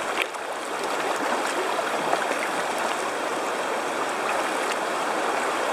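Steady rushing of river water through a shallow riffle around a kayak.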